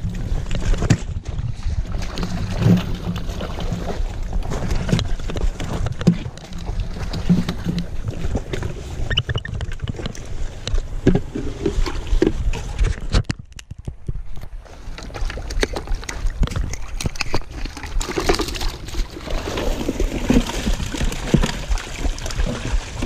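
Water sloshing in a plastic five-gallon bucket holding live trout as it is carried, over a steady low rumble with scattered handling knocks. About halfway through, the bucket's snap-on lid is pried off, and near the end the water and fish are poured out into the stream.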